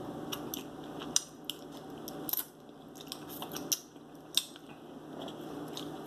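Mouth sounds of someone eating a mussel in butter sauce straight from the shell, with scattered sharp clicks of shell and mouth.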